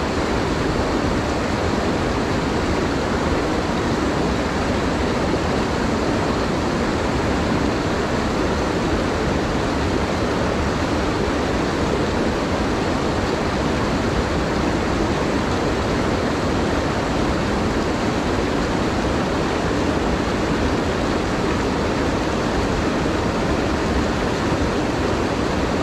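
Mountain stream rushing through boulder rapids close by: a steady, unbroken wash of whitewater.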